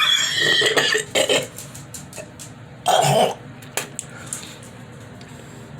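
A man's harsh, wet coughing and hacking from a COVID-19 chest infection as he tries to bring up thick phlegm: a bout of several coughs over the first second and a half, then another cough about three seconds in.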